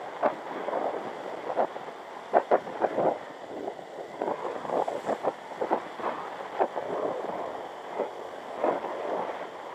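Wind buffeting the microphone of a moving camera: uneven gusts and thumps of rushing noise.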